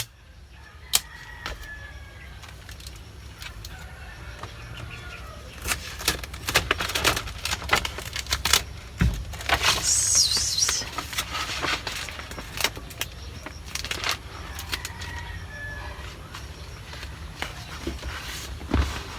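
Scattered clicks, taps and rustles of a cardboard sign and tape being handled, with a brief louder high hiss about ten seconds in.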